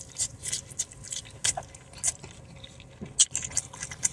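A person biting into and chewing a mouthful of chipotle chicken taco close to the microphone: irregular mouth clicks and smacks several times a second.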